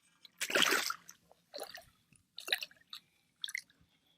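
Water splashing and dripping, with wet squishing sounds. There is one brief splash about half a second in, then a few short, scattered drips and squelches.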